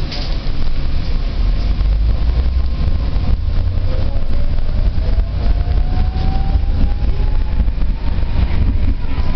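Inside a moving electric tram: a steady deep rumble of the wheels and running gear on the rails. From about three seconds in, a single whine rises steadily in pitch as the tram's traction motors speed it up.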